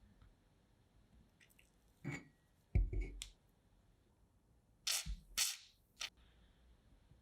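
A handful of sharp clicks and knocks of hard objects being handled and set down: one about two seconds in, a heavier knock near three seconds, and a quick cluster a little past halfway.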